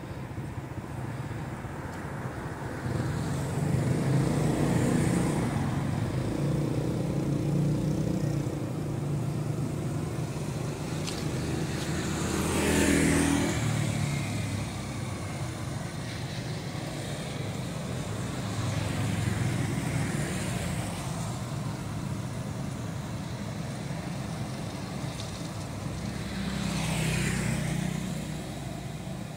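Road traffic: engines running steadily, with one vehicle passing by about halfway through and another near the end.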